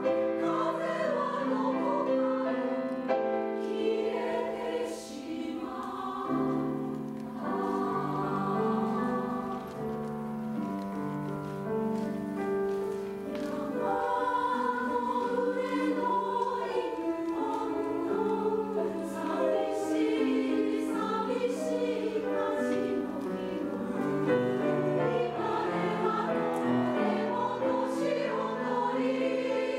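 Women's three-part choir singing in held, sustained chords, accompanied by a grand piano.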